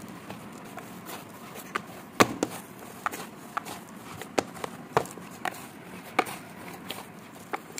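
Finger millet dough being kneaded by hand in a plastic bowl: irregular short slaps and knocks, about one or two a second, with the loudest about two seconds in and again about five seconds in.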